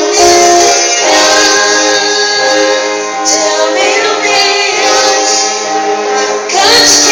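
Band music with singing voices over held instrument tones, loud throughout.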